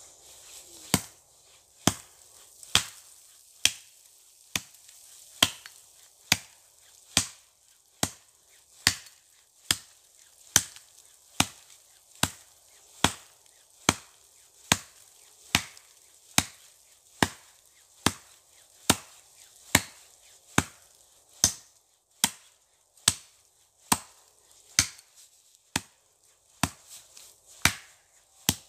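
Axe chopping into the base of a green poplar trunk: sharp, evenly spaced strikes of the blade biting into wet wood, a little more than one a second, about thirty-three blows in all.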